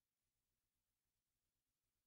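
Silence: no audible sound at all.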